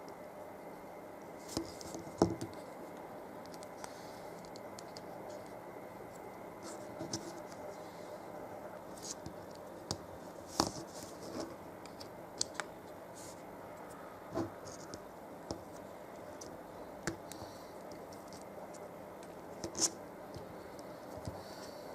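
Hands handling a toy's packaging: scattered sharp clicks, scrapes and rustles, a dozen or so over the stretch, the loudest about two seconds in, over a steady faint hum.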